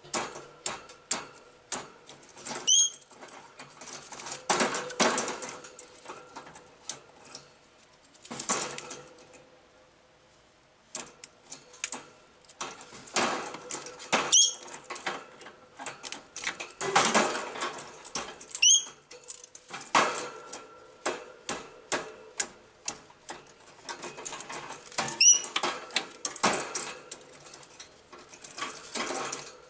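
Green-cheeked conure attacking a pinecone on the cage's wire floor grate: rapid irregular clicks, knocks and rattles as the cone is bitten and banged against the wires, with several longer rustling scrapes. A few short, high squeaks come through, and there is a brief lull about ten seconds in.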